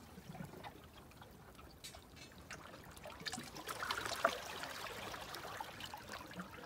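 Seawater trickling and lapping among shoreline rocks, with small splashes and drips as a hand crab net is worked in the shallow water, busiest around the middle.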